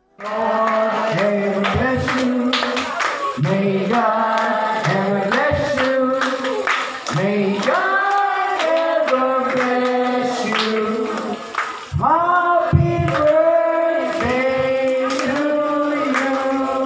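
A group of voices singing a song, with long held notes and a brief pause about twelve seconds in.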